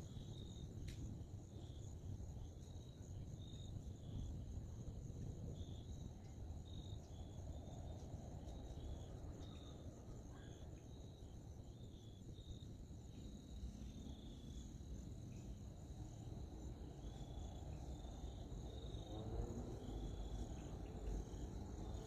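Crickets and other insects calling: a steady high drone with short chirps repeating about once a second, over a low rumble.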